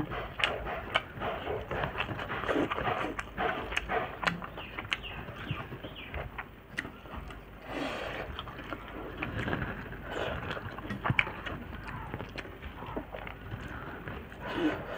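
Eating by hand: fingers mixing rice and curry on a steel plate, then chewing with many small wet mouth clicks and smacks.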